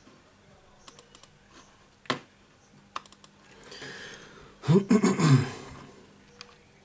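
Scattered light clicks and taps of fingers handling a smartphone and its loose replacement display module, with one louder, brief noisy sound a little past halfway through.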